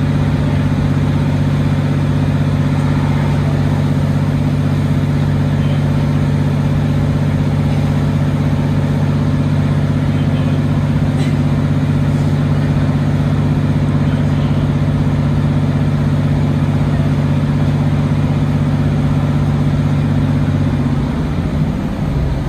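Class 150/2 diesel multiple unit's underfloor Cummins diesel engine, heard from inside the carriage, running with a steady, even note; near the end the note drops and changes.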